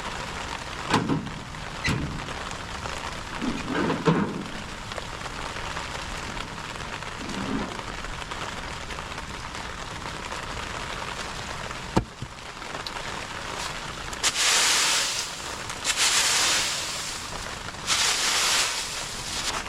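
Steady rain falling, with a few short knocks and thuds in the first few seconds, a sharp click about twelve seconds in, and three loud hissing rushes of noise near the end.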